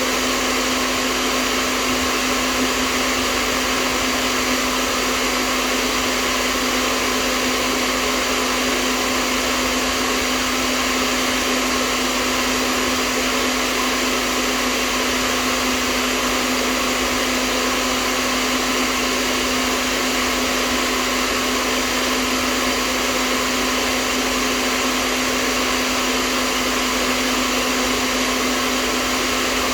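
Hair dryer running steadily: an even rush of blown air with a steady motor hum, unchanging throughout.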